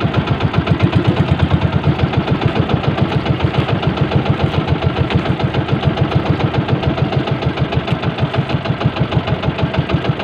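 Small boat engine running steadily with a rapid, even chugging beat.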